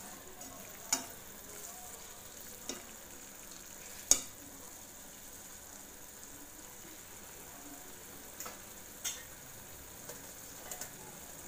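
Thick paneer masala sizzling in a metal kadai while a metal spatula stirs it, with a handful of short knocks and scrapes of the spatula against the pan; the loudest knock comes about four seconds in.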